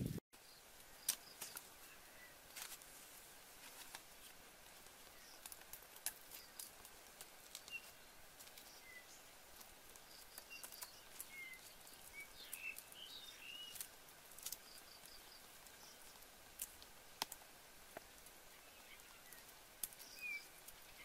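Quiet forest ambience with a few faint, short bird chirps scattered through it, and occasional small clicks and rustles from hands handling leaves and a stick.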